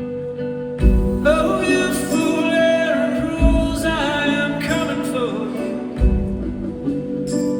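A slow song with a long, sliding, voice-like melody without clear words over a steady held tone. Deep drum beats land about every two and a half seconds.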